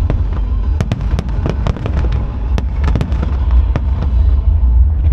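Fireworks display going off: a rapid, irregular crackle of sharp pops and bangs over a steady deep rumble, thinning out near the end.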